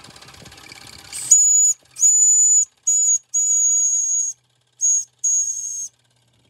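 Steam whistle of a Mamod live-steam model traction engine blown in six short toots: a high, steady whistle with a hiss of steam, the longest toot about a second.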